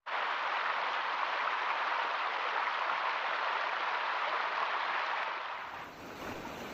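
Rushing water, a steady dense splashing hiss, that fades away about five and a half seconds in.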